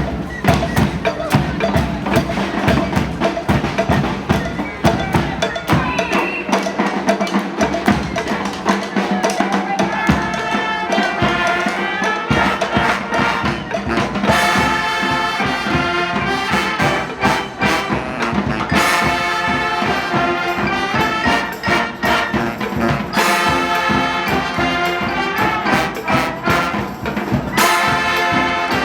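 A street brass band playing live: drums and hand percussion keep a steady beat, and trumpets and trombones come in about ten seconds in, then play full chords in phrases with short breaks between them.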